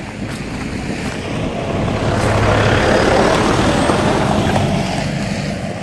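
Pickup truck driving past on a dirt road: engine rumble and tyres on the dirt grow louder to a peak about three seconds in, then fade as it moves away.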